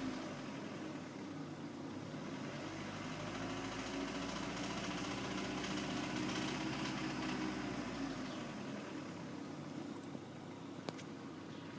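Opel X18XE 1.8-litre 16-valve four-cylinder petrol engine idling with the knock it is being recorded for, and one sharp click near the end.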